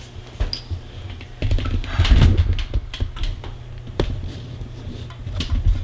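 Balls of cookie dough going into hot deep-frying oil, which crackles with scattered sharp pops, with a few low bumps of handling about two seconds in.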